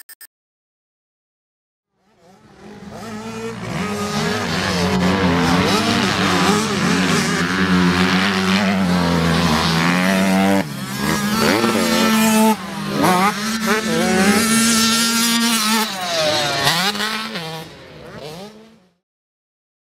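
85cc two-stroke motocross bike engines revving up and down, their pitch rising and falling through the gears. The sound fades in about two seconds in and fades out near the end.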